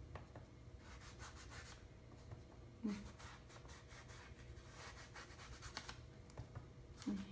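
Soft, scratchy rubbing and rustling of an ink sponge being dabbed and wiped along the torn edges of magazine paper, with the paper handled between strokes. A brief low sound about three seconds in.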